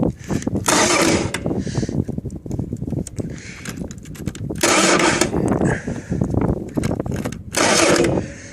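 Kohler KD425-2 diesel engine being cranked by its starter, churning over in an uneven run of compression knocks without catching, with three short bursts of hissing. It is hard starting, which the owner puts down to an air leak somewhere that loses fuel prime.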